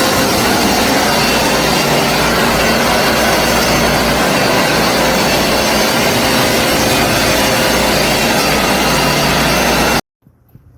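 Hoover SmartWash carpet cleaner running, its suction motor giving a loud steady rushing noise with a low hum underneath. It cuts off suddenly near the end.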